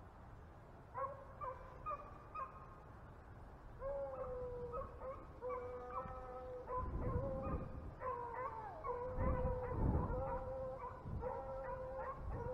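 Beagles baying while they run a rabbit's trail. Short yelps come first, then from about four seconds in there are long, overlapping bawls, and low rumbles from the microphone come in twice.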